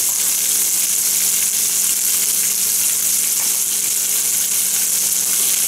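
Pork and bacon frying in a pan left on the heat, sizzling with a steady hiss. A low steady hum runs underneath.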